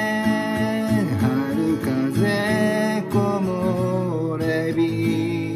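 Acoustic guitar with a capo being strummed, with a man's singing voice holding a long note over it early on that falls away about a second in.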